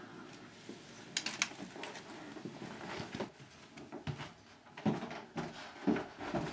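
Footsteps thudding along a hallway floor, roughly two steps a second in the second half, after a few light clicks about a second in.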